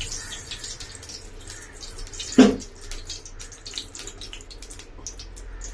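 Cooking oil poured from a steel tumbler into a stainless steel pan on a gas stove. A single loud knock comes about two and a half seconds in, followed by scattered faint clicks.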